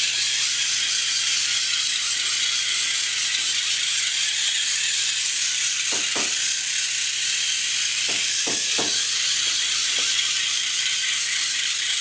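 Small geared drive motors of a Cruiser micromouse robot running steadily as it follows a line, a high rattling whir, with a few soft knocks about halfway through and a little later.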